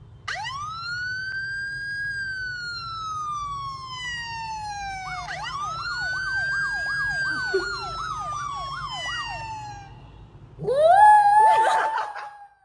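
Siren-like wail: a tone rises and slowly falls, then climbs again into a fast up-and-down yelp a few times a second. A rougher rising wail comes near the end, over a low steady hum.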